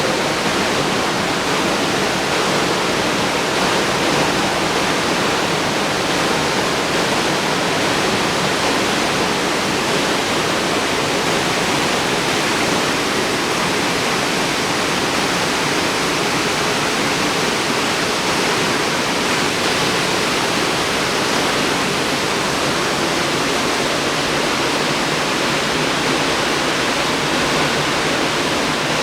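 Waterfall: a steady, unbroken rush of falling water, even and constant throughout.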